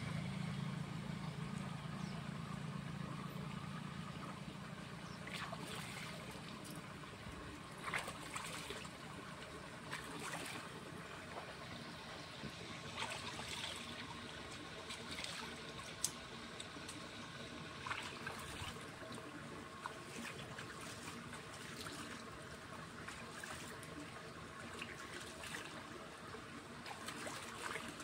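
Water trickling in a shallow irrigation channel, with scattered small splashes as hands wash in it. A low steady hum fades out over the first few seconds.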